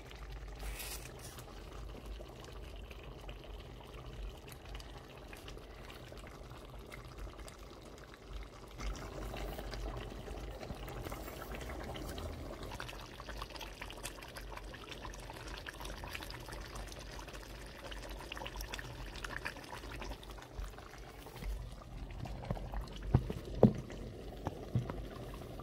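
A pot of egusi soup simmering on an electric hotplate, with a soft, steady bubbling. A few knocks come near the end.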